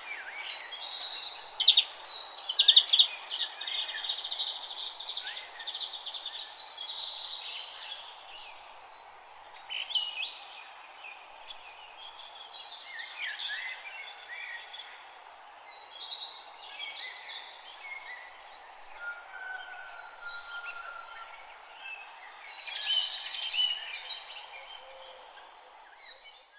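Several wild birds chirping and singing in short overlapping bursts and trills over a steady outdoor background hiss, busiest a couple of seconds in and again near the end.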